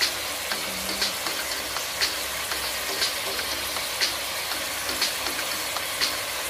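Chunks of meat simmering and sizzling in their juices in a pot, a steady hiss, with a sharp tick about once a second.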